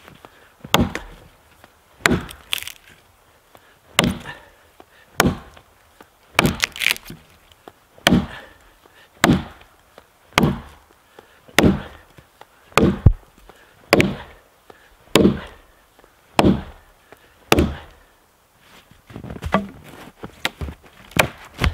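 Boy's axe chopping into a dense oak log, a steady series of sharp wooden strikes about one a second as a notch is cut through it. Near the end the strikes stop for a couple of seconds of lighter knocks and cracks as the log is worked by hand, then one more strike.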